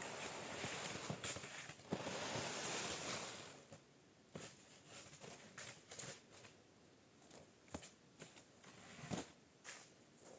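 Footsteps and movement: a steady rustling noise for the first three and a half seconds, then it drops away, leaving scattered light knocks and clicks.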